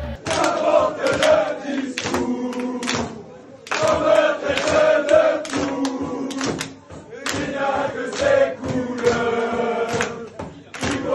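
Football crowd chanting in unison: phrases sung together by many voices, with short breaks between them and repeated sharp beats underneath.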